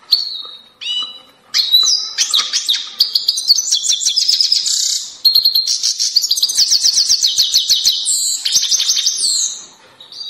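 Grey-headed goldfinch singing: a few short calls, then from about a second and a half in a long, fast twittering song of rapid trills and buzzy notes, which stops shortly before the end.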